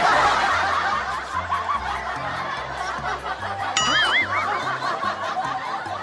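Laughter sound effect: many people laughing at once, cutting in suddenly, over background music with a repeating bass line. A short wobbling cartoon-style tone about four seconds in.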